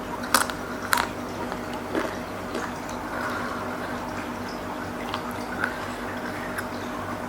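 Close-miked eating of seblak: wet chewing and squishy mouth sounds from a spicy, saucy dish, with a few sharp clicks near the start.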